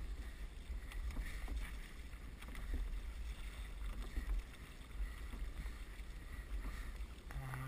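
Oar strokes swishing through calm water beside a wooden rowing boat, with soft watery swells recurring about every second and a half. A low rumble of wind on the microphone sits underneath.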